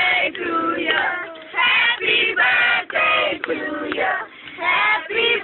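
A group of voices, mostly children's, singing a song together loudly, note after note with short breaths between.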